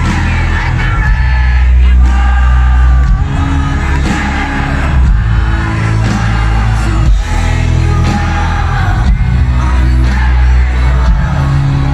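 Live pop ballad performance: a woman singing the lead over a full band with heavy bass, recorded from the concert crowd.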